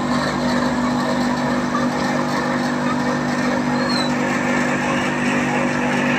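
Cotton candy machine running, its spinning head and motor giving a steady hum over a constant whirring hiss.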